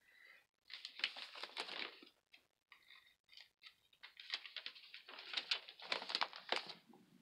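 Paper catalog pages rustling and crinkling as they are handled, turned and unfolded, in two spells: about a second in, and again from about four seconds until near the end.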